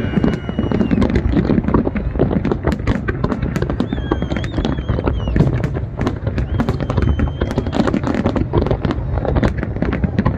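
Firecrackers going off in a dense, rapid string of sharp cracks and bangs, with faint whistling tones about four seconds in and again about seven seconds in.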